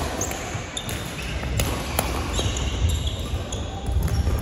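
Badminton doubles rally on a wooden sports-hall floor: several sharp racket hits on the shuttlecock, short shoe squeaks and thudding footfalls, all echoing in the large hall.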